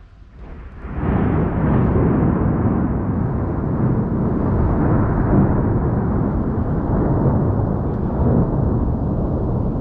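Loud rolling thunder, swelling up about a second in and rumbling on without a break, deepest in the low end.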